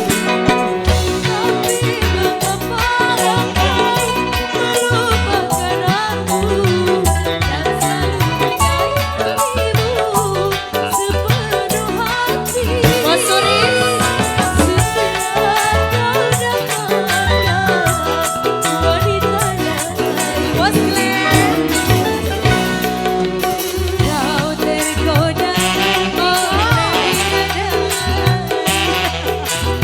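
Loud band music with a busy percussion beat and melodic lines, a sung or instrumental melody gliding over it.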